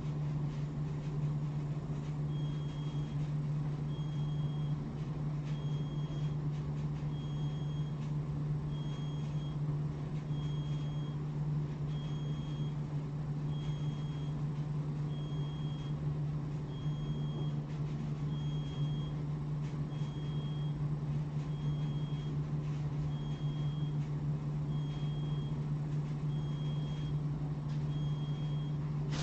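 A steady low electrical hum, with an electronic beeper starting about two seconds in and sounding a short high beep about every one and a half seconds.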